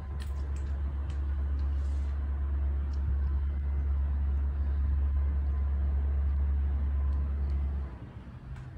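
Wind buffeting the microphone: a steady low rumble that cuts off abruptly near the end.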